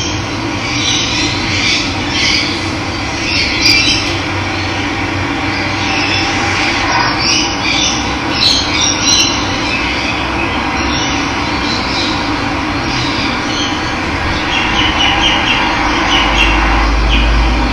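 Running water rushing steadily, with wild birds calling and chirping over it throughout. A low rumble comes in near the end.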